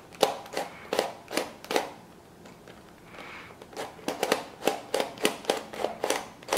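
Polyurethane-resin Icosaminx twisty puzzle being turned by hand: a run of quick plastic clacks as its layers are twisted round, about three a second. The clacks pause about two seconds in and start again about a second and a half later.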